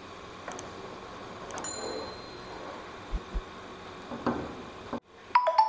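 Kheer (milk and rice) simmering in a pan while a wooden spatula stirs it: a quiet steady hiss with a few soft low knocks and a couple of short clicks. The sound cuts off suddenly near the end.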